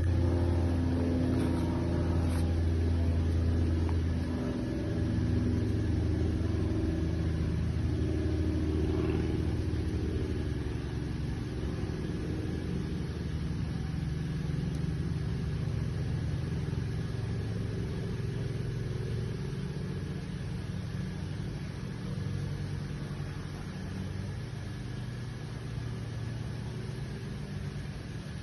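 A motor vehicle's engine running steadily at low speed, its low hum shifting slowly in pitch and gradually getting quieter.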